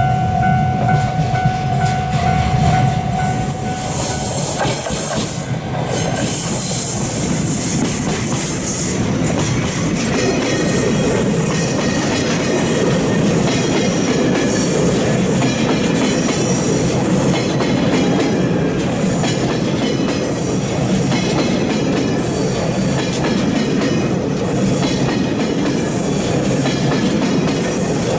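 A freight train of empty Taki 1000 tank cars, hauled by a DE11 diesel locomotive, rolls steadily past with wheels clacking over the rail joints. A high held tone sounds for the first three and a half seconds or so, then stops.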